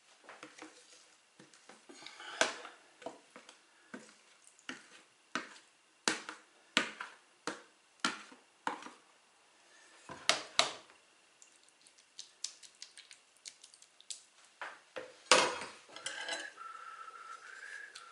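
A metal ladle scraping and tapping against a plastic mixing bowl and a metal loaf tin as a potato-onion bake mixture is ladled in: a run of sharp clinks about every 0.7 s, then one loud clatter about 15 seconds in. Near the end a wooden spoon scrapes as it spreads the mixture in the tin.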